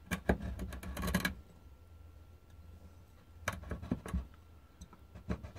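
Glass cutter wheel scoring a glass bottle as the bottle is rolled against it in a wooden jig: a crunchy, crackling grind in two bursts, one over about the first second and another about three and a half seconds in.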